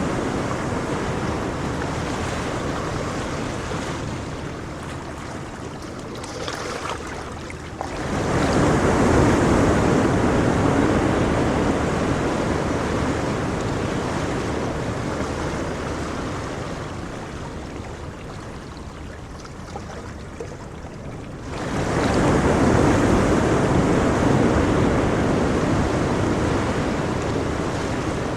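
Ocean waves breaking and washing up the shore. Two waves surge in, about eight seconds in and again about twenty-one seconds in, each fading away slowly into the steady wash.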